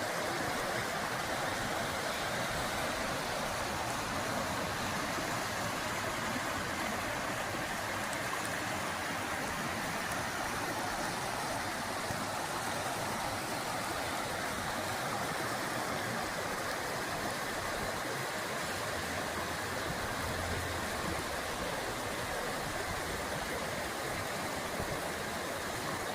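Creek water rushing and babbling steadily over rocks, running high with snowmelt.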